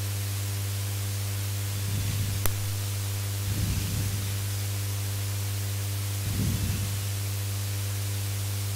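Steady electrical hum with a constant hiss on the recording, and a single click about two and a half seconds in.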